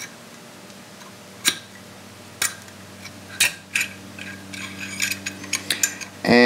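Small metal AR-15 parts clicking and tapping as they are handled while the gas tube is worked free: a few sharp clicks about a second apart, then a quicker run of lighter ticks near the end.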